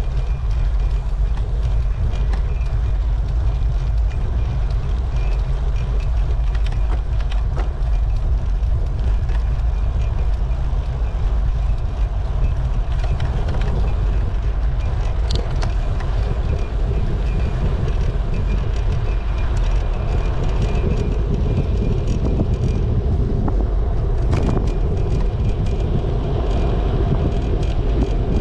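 Steady low rumble of wind buffeting the microphone and tyre noise from a bicycle rolling along a road.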